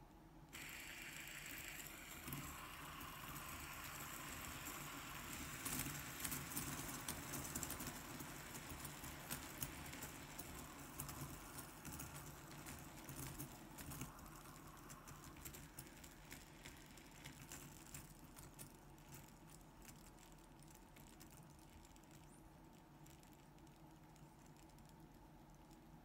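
Several magnet-tipped ball-bearing fidget spinners whirring and rattling with irregular clicks as the magnets drive their neighbours into spinning. The sound starts suddenly about half a second in, grows busier with sharp clicks for a few seconds, then dies away slowly as the spinners run down.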